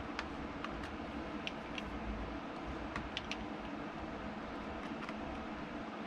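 Faint, scattered small clicks of a tri-wing screwdriver working out the screws on the back of a Nintendo Switch Lite, a few irregular ticks over a steady background.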